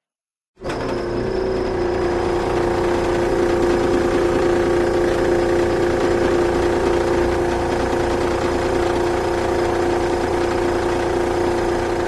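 A machine running steadily after about half a second of silence. It gives a constant hum with a strong steady tone and its overtones over an even noise, and it does not change in speed.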